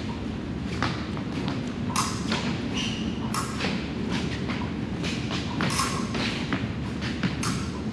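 Fencing footwork thumping on a metal piste, mixed with sharp clicks and brief metallic rings of the fencing blades touching, a dozen or so irregular hits over a steady low hum.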